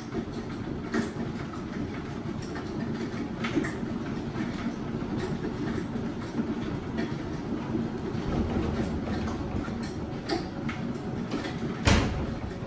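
Ferris cat wheel turning on its base under a running cat: a steady low rolling rumble with scattered clicks and knocks, and one loud knock near the end.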